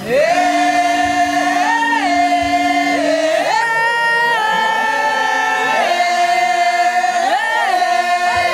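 A group of voices chanting in long held notes, stepping between a few pitches, with a lower held note under them for the first three seconds or so.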